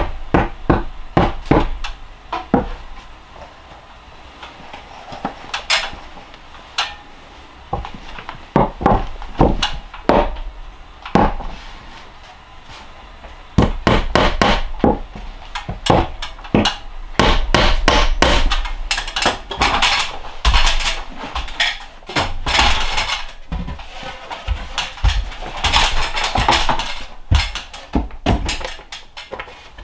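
Hammer striking nails into charred pine ceiling boards overhead, in runs of rapid blows with pauses between them.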